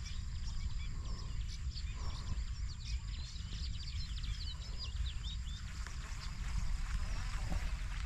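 Birds chirping in many quick, short calls that rise and fall in pitch, busiest in the first five seconds and thinning out after, over a steady thin high whine and a low rumble.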